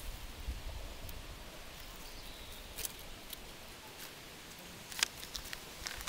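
Faint outdoor background with a few light, sharp clicks and rustles of handling as a hand pulls at twine and a paper note on a tree trunk; the loudest click comes about five seconds in.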